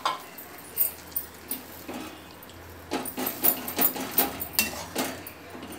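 Steel spoon clinking and scraping against a kadai as boiled chickpeas are stirred into wet masala gravy: a few scattered clinks at first, then a quick run of them over the last few seconds.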